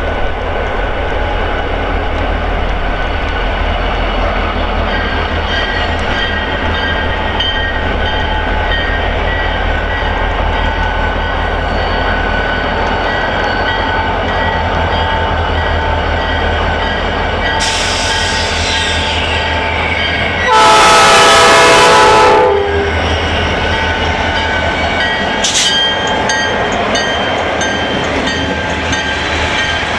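Diesel train locomotives running with a steady low rumble, and one train horn blast of about two seconds, some twenty seconds in.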